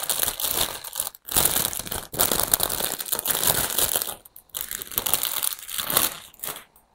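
Clear plastic plant sleeve crinkling as it is handled and pulled off a potted plant, with short breaks about a second in and about four seconds in.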